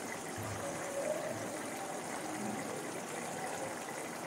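Chicken kofta curry simmering in a non-stick pan on a low gas flame: a steady, even hiss.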